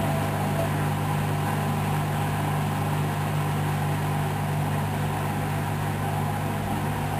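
Hoover Dynamic Wash DYN 10124 DP washing machine in its final spin, the motor and drum running at a steady high speed with an even hum.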